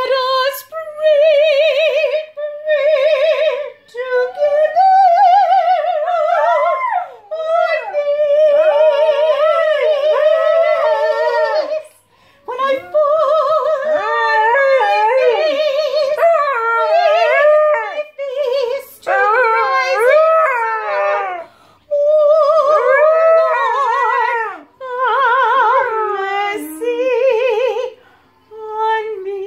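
A woman singing a slow spiritual in long, wavering notes while a dog howls along with her. The howls slide up and down over her held notes in phrases of a few seconds, with short breaks between.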